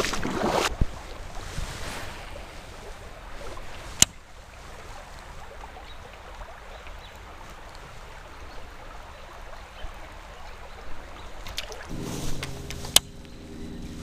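Water sloshing as someone wades along a shallow creek, with a couple of sharp clicks. A low steady hum comes in near the end.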